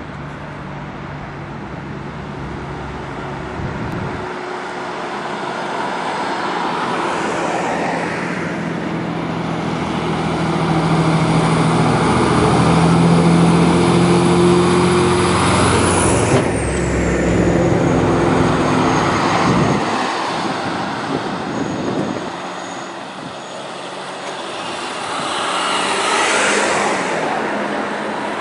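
Steyr six-wheel-drive hook-loader fire truck's diesel engine and tyres passing close by, growing louder to a peak about halfway, where a high whine drops sharply in pitch as it goes past. A second, smaller vehicle pass follows near the end.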